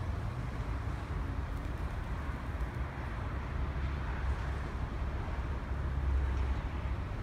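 Steady outdoor background noise: a low rumble with a soft hiss over it, swelling slightly about six seconds in.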